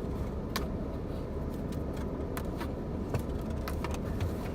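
Small clicks, crackles and rustles of a cardboard pizza box and cheese bread being handled, a few sharp ones spaced about a second apart, over a steady low rumble.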